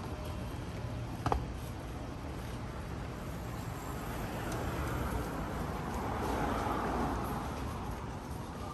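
Street traffic: a steady low rumble, with a vehicle passing on the road midway, swelling and fading. There is a single sharp metallic click about a second in.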